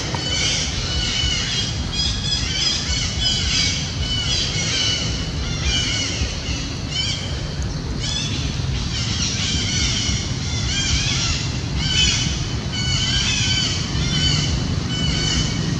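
Many short, high animal calls overlapping, several a second, over a steady low rumble.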